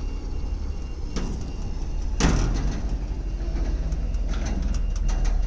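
Heavy diesel truck engine running at low speed as the tractor unit creeps forward. There is a sharp knock about a second in and a louder clank about two seconds in.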